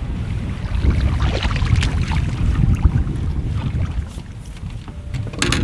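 Wind buffeting the microphone, with scattered light splashes and knocks as a hooked estuary perch is brought to the side of the boat and landed by hand. A sharper splash comes near the end.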